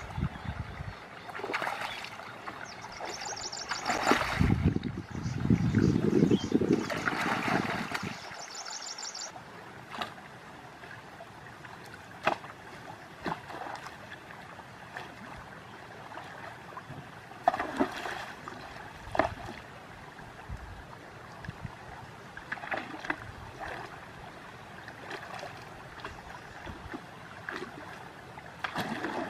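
Muddy creek water splashing and churning as a long bamboo pole is jabbed into the water at the bank, loudest in the first several seconds, then quieter sloshing and occasional splashes as a person wades through knee-deep water.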